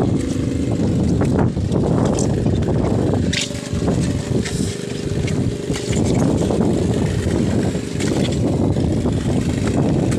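Small fishing boat's engine running steadily with a low rumble, with a few knocks from handling gear on board.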